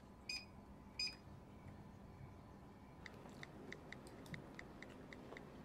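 Two short electronic beeps from an oven's control keypad as its buttons are pressed. About three seconds in, a run of soft, evenly spaced phone keyboard ticks, about three a second, as a text message is typed.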